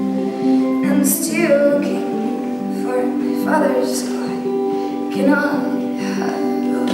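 Live band music: a slow song on hollow-body electric guitar and violin, with held notes and several sliding melodic phrases over them, partly a woman's voice.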